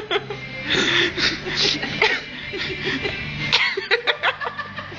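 Several people laughing and chuckling, in short bursts, over background music.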